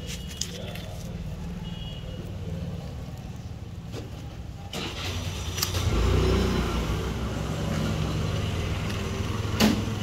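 Low, steady engine rumble that grows louder about five to six seconds in, with a sharp click near the end.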